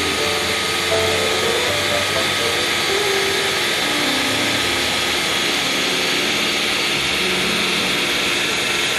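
Ninja Professional 1500-watt blender running steadily on its Crush program, its motor and blades whirring with a steady whine as they purée strawberries, watermelon and water into juice.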